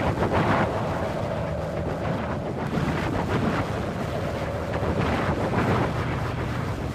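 Windy atmosphere: wind blowing in a continuous rush that swells and eases every second or so, with a faint steady whistle underneath.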